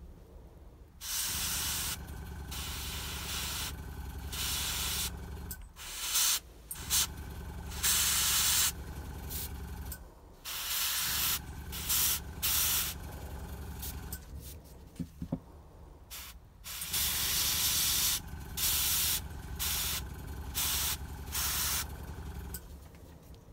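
Gravity-feed airbrush spraying paint in repeated bursts of hiss, each a second or two long, starting about a second in, over a low hum.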